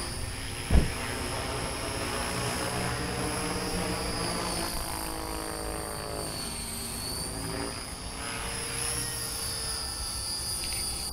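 Radio-controlled model helicopter flying aerobatics: a steady high whine under the rotor's buzz, which sweeps up and down in pitch as it manoeuvres. A brief loud thump comes about a second in.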